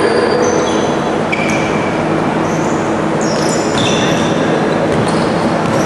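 Basketball sneakers squeaking on a hardwood gym floor: a string of short, high squeaks at different pitches over the steady din of the hall.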